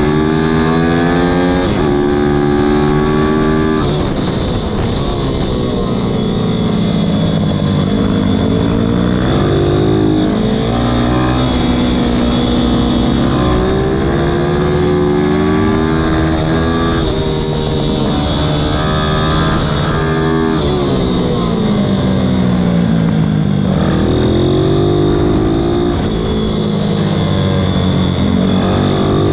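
Ohvale minibike's single-cylinder four-stroke engine being ridden hard on track, the revs climbing and dropping again and again through gear changes and corners, over steady wind rush.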